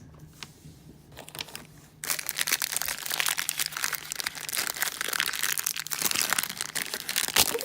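A plastic blind-bag packet crinkling in the hands as it is opened, starting about two seconds in and going on in quick, dense crackles.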